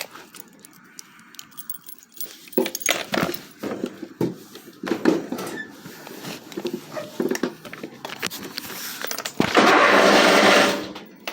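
Scattered key jingles and light clatters, then about nine and a half seconds in a sudden loud, harsh burst lasting just over a second as the Craftsman riding mower's V-twin engine is tried. It does not start and sounds awful.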